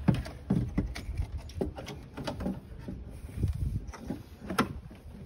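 Irregular metal clunks, knocks and scrapes of a car alternator being worked down into place in an engine bay by hand, with the sharpest knocks at the start and about four and a half seconds in.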